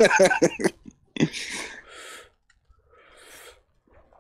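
People's voices on a podcast call line: about a second of speech, then two short breathy noises a little over a second apart.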